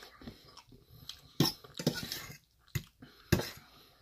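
Metal fork clinking and scraping against a stainless steel bowl of rice curry, about four sharp clinks, with softer chewing sounds in between.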